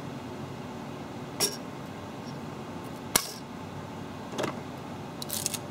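Sharp clicks and knocks on glass as a freshly printed plastic part is pried loose from a 3D printer's glass bed: one about a second and a half in, one near three seconds, one near four and a half, and a quick cluster near the end, over a steady background hum.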